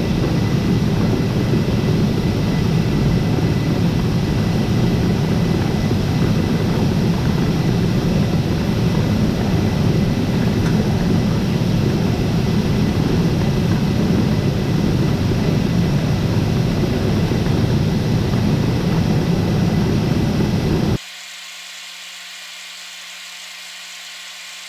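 Grain-bin unloading machinery running steadily and loudly while soybeans are augered out of the bin into a truck. Near the end it cuts off abruptly, leaving a much quieter steady hum.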